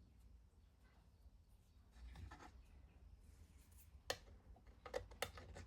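Near silence with a few faint clicks and light knocks of small objects being handled, one about four seconds in and a short cluster near the end.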